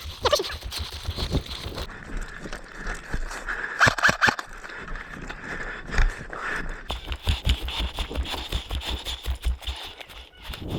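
Footsteps of a player on the move, a steady run of low thuds about three or four a second, with clothing and gear rustling close to the microphone.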